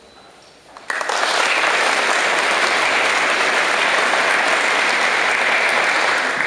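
Audience applauding, breaking out suddenly about a second in and holding steady.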